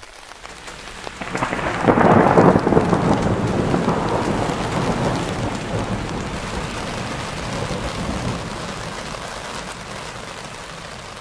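Thunder rolling over rain: the rumble swells about a second and a half in, peaks around two seconds, then slowly dies away under the steady rain.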